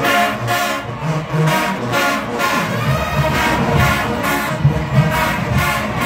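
Marching band brass playing short, punchy notes in a steady rhythm. Deep drum beats join in about halfway through.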